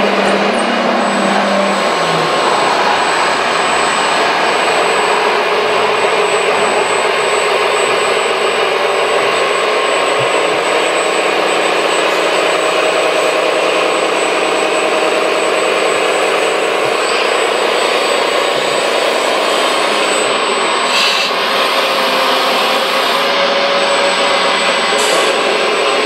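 Radio-controlled scale construction machines running steadily: the onboard engine sound system and hydraulics of a Liebherr 956 excavator model working its boom, with a model dump truck driving up. A low steady tone drops out about two seconds in.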